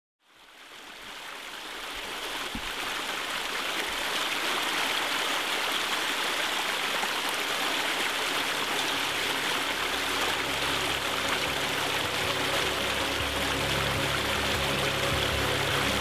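Steady rush of a flowing stream, fading in over the first few seconds. In the second half, low sustained music tones build up underneath.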